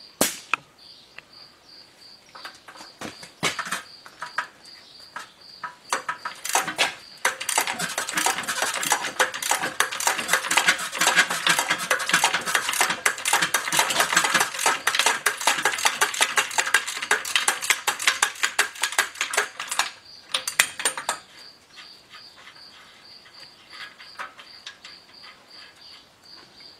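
Ratchet wrench and socket working the rusted lower ball joint nut off a Dana 30 steering knuckle: scattered metal clicks at first, then a long run of rapid ratchet clicking from about seven seconds in until about twenty seconds in, then a few more clicks.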